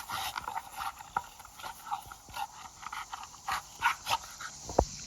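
American bully dog panting hard in irregular bursts while working at a basketball, with one sharp knock near the end.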